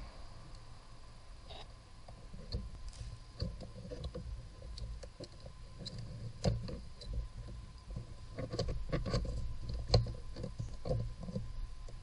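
Irregular small clicks, taps and scrapes of hands working a plastic heater valve unit and its rubber hoses in a car's engine bay, growing busier in the second half, with the sharpest knocks about six and a half and ten seconds in.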